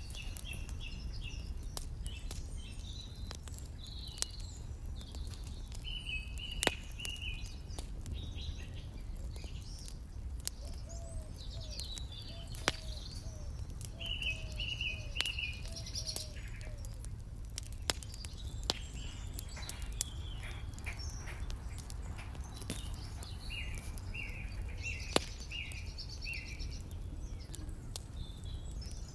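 Birds chirping in short repeated phrases over a steady low rumble, with scattered sharp clicks.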